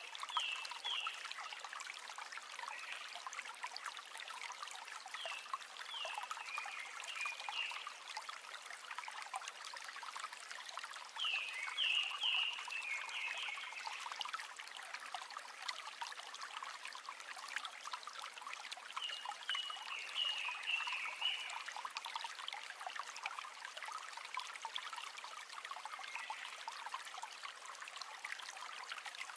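River water trickling and babbling steadily. Over it, short phrases of high chirping calls from an animal come four times, each a quick run of falling notes lasting a second or two.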